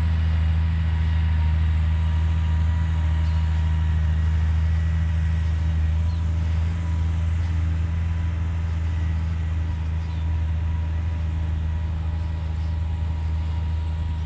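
Steady low mechanical hum at a constant pitch, with a faint higher whine above it.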